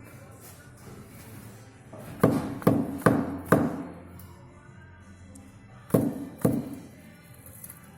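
Sharp knocking thuds from a car: four knocks about half a second apart, then two more a few seconds later. This is the strange knock the car is making.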